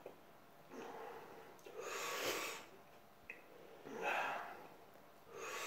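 A man breathing heavily, four loud noisy breaths, as he suffers the burn of a very hot chilli sauce.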